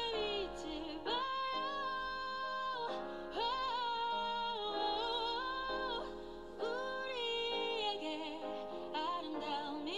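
Background music: a slow ballad with a woman singing long held notes, some of them wavering, over a steady instrumental backing.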